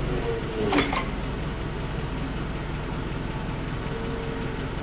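A forklift's engine idling steadily, with one short metallic screech about a second in.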